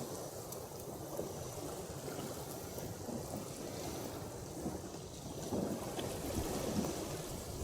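Small waves of lake water lapping at the shore in uneven washes, a little louder in the last couple of seconds.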